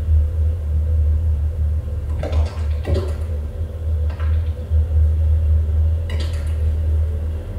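A loud, steady, deep rumbling drone with a faint constant hum above it. Four brief swishes break in, about two, three, four and six seconds in.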